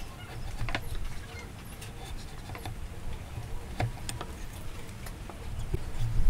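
Chisel paring a joint in a timber beam by hand: scattered light clicks and scrapes as the blade shaves the wood, over a low rumble.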